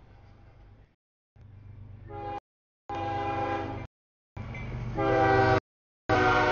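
A CSX freight locomotive's air horn sounds a series of blasts for the grade crossing as the train approaches. Each blast is a chord of several steady tones, and the blasts get louder, from about two seconds in, as the locomotive nears.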